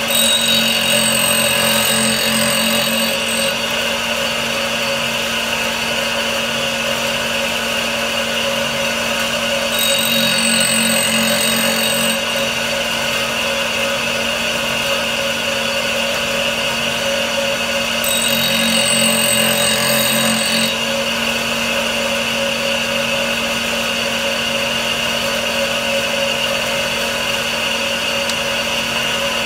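Homemade tool-and-cutter grinder with a diamond cup wheel running with a steady hum. Three times, for two to three seconds each (near the start, about ten seconds in and about eighteen seconds in), a higher, brighter sound joins in as the countersink's cutting edges are passed against the wheel to sharpen them.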